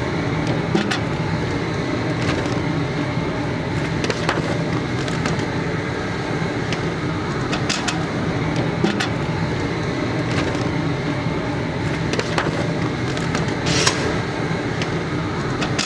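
Propane-fired crawfish boiler running steadily under a pot at a rolling boil, with knocks and splashes as red potatoes and sausage are dropped and tipped in from a foil pan. A clunk near the end as the hatch lid is closed.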